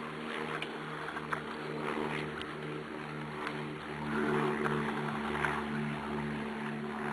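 A steady low mechanical hum from a running motor, pulsing evenly about three times a second, with faint scattered clicks and rustles over it.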